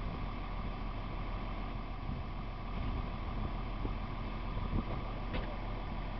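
Steady low rumble of wind buffeting the microphone, with a faint tick about five seconds in.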